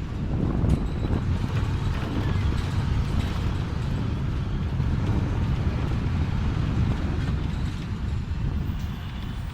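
Steady road traffic noise: a continuous low rumble of passing vehicles, with some wind on the microphone.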